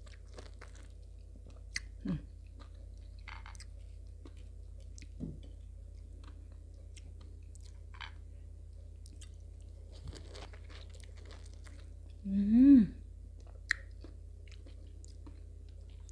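Juicy tangerine segments being chewed, with scattered short wet clicks and smacks. About three-quarters of the way through comes a brief voiced 'mm' that rises and falls in pitch, the loudest sound.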